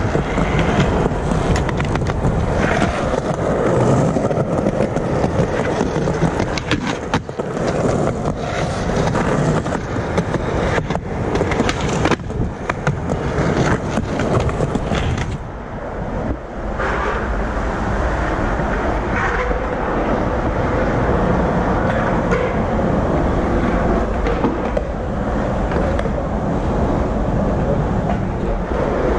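Skateboard wheels rolling over rough concrete, a continuous rumble broken by sharp clacks of the board. About sixteen seconds in, the sound changes to a smoother, steadier rolling rumble on a smooth indoor floor.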